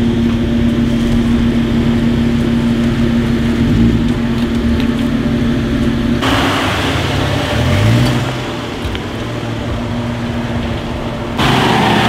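Lifted Jeep Wrangler JK's engine running under load as it crawls over deep dirt ruts, holding a steady pitch and then revving up and down. The sound changes abruptly near the end.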